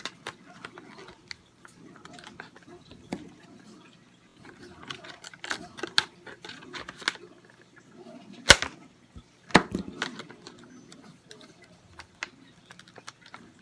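Stiff plastic flashlight packaging being handled and worked open with a knife: irregular crackling and clicking, with two sharp snaps about a second apart a little past the middle.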